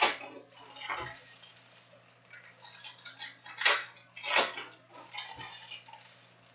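Trading card packs being opened and stiff chrome cards handled on a table: about five sharp clicks and slaps of cards and packs, with paper and foil wrappers rustling in between.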